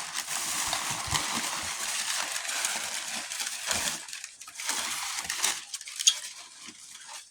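Large-bubble packing wrap being squeezed and twisted by hand, a dense run of crackling pops for about four seconds, then a shorter burst and one sharp loud pop about six seconds in.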